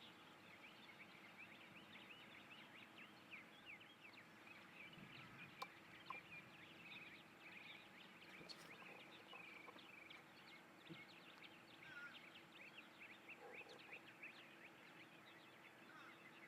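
Faint, continuous chatter of many small bird chirps, dense and overlapping, over a faint steady hum.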